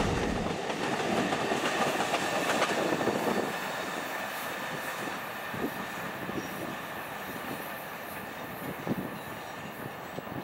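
Freight cars' steel wheels rolling past on the rails. It is a steady, loud rumble for the first three and a half seconds or so, then drops to a quieter rolling with scattered clacks.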